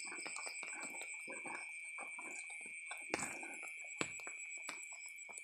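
Night insects trilling steadily at a high pitch, with scattered soft clicks and rustles close by and two sharper clicks about three and four seconds in.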